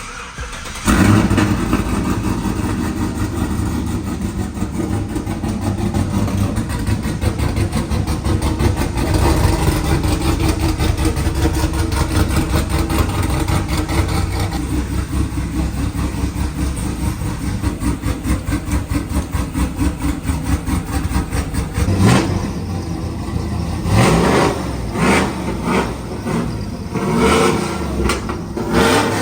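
Burnout truck's engine starting about a second in, then idling with a rapid, even pulse. In the last several seconds it is revved in a handful of short, sharp throttle blips.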